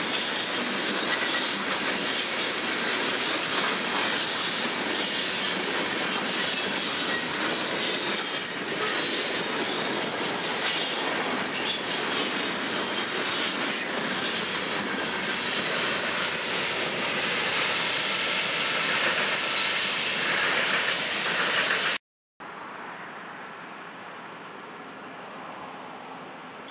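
Freight cars (covered hoppers and tank cars) rolling past at close range: steel wheels clattering over the rail joints with a high-pitched wheel squeal, the squeal thinning out after about fifteen seconds. The train sound cuts off abruptly about 22 seconds in, leaving much quieter background noise.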